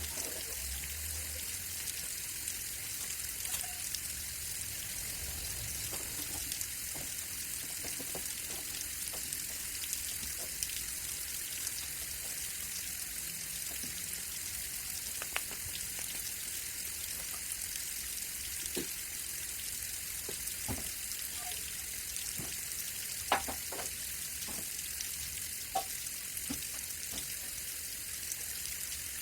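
Steady high hiss of water, with scattered light clicks and knocks; the sharpest knocks come about two-thirds of the way through and again shortly after.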